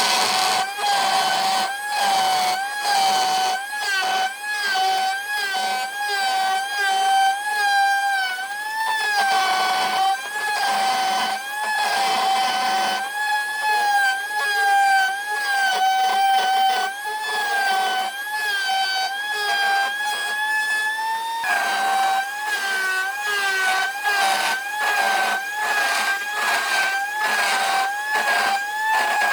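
An electric power tool working wood, its motor whining steadily with a pitch that wavers slightly as the load changes, and repeated rasping strokes about twice a second.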